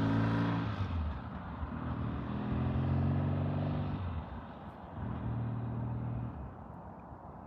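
Vintage Triumph motorcycle engine on a test ride, pulling in three bursts of throttle with short drops between, fading as it gets farther away.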